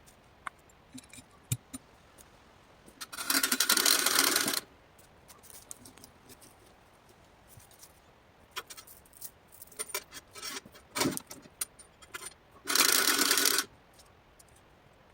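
Metal tape measure being run out and retracting, twice: two rattling whirs, each about a second long, with scattered small clicks and knocks in between.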